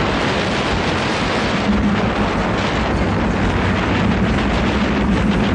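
Roller coaster train running at speed on the steel track of the Vortex, an Arrow Dynamics looping coaster: a steady loud rush of wind on the microphone over the rumble of the wheels, with rapid rattling toward the end.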